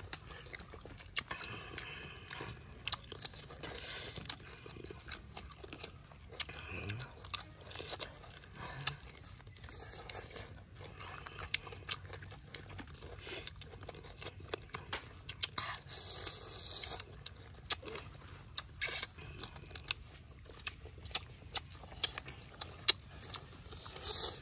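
Two people biting and chewing crispy fried chicken feet, with irregular crunches, bone cracks and wet mouth sounds throughout.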